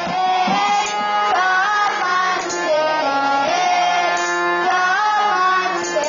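Harmonium playing a melody in steady held notes, with a drum stroke every second and a half or so.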